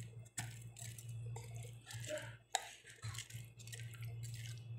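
Spoon stirring a chickpea salad with yogurt dressing in a glass bowl: irregular wet squishing and scraping strokes, with one sharper knock a little over halfway through.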